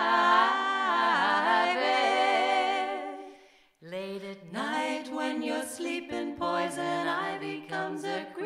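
Three female voices singing a cappella in close harmony. A held chord fades out about three seconds in, then after a short break the voices pick up again with short, rhythmic syllables.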